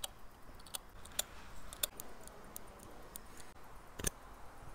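Small, sharp metallic clicks and taps from watch parts being handled with fingers and tools. A few irregular clicks with fainter ticks between them, the loudest just after four seconds.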